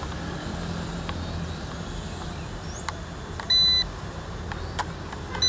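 Drone remote transmitter beeping: a short, high electronic beep about three and a half seconds in and another right at the end, with a few faint clicks, over steady low background noise.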